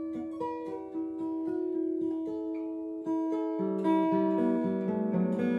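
Acoustic guitar playing a slow melody of picked notes that ring on over one another, growing louder and fuller about three seconds in as lower notes join.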